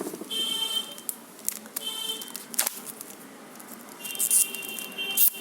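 Packaging being handled during an unboxing: several bursts of rustling and squeaky scraping, with a few sharp clicks in between.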